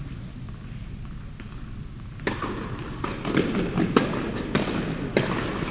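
A tennis ball bouncing repeatedly on an indoor hard court, a run of sharp bounces starting about two seconds in. Fainter ball knocks come from neighbouring courts before that.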